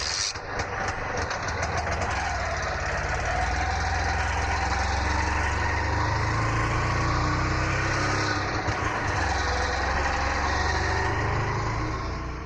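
Auto rickshaw engine running steadily with a heavy low rumble. A quick run of clicks comes in the first second, and the engine note rises slightly about two seconds in.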